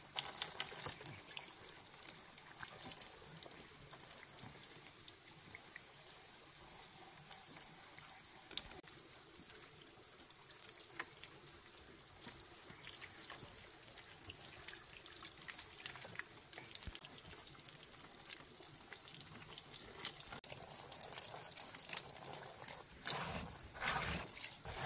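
Water trickling and splashing, with many small clicks and knocks throughout and a louder stretch of splashing near the end.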